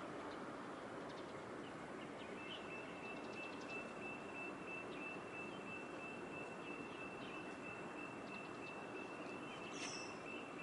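Steady outdoor background noise, a broad even hiss and hum. About two seconds in, a thin steady high-pitched tone joins it and holds. A few faint bird chirps are scattered through, with one short chirp near the end.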